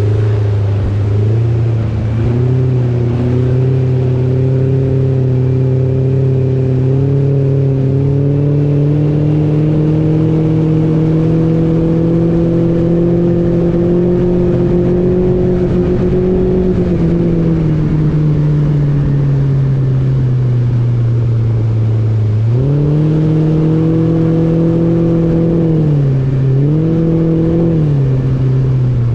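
Mercury 115 Pro XS four-stroke outboard driving a small speedboat at speed. Its note climbs slowly, eases off a little past halfway, then picks up sharply with two brief dips near the end as the throttle is worked.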